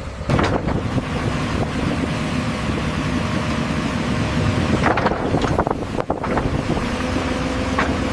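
Excavator's diesel engine and hydraulics running steadily under load, with a thin steady whine over the engine. Several sharp knocks or clanks come through: one just after the start, a cluster about five to six seconds in, and one near the end.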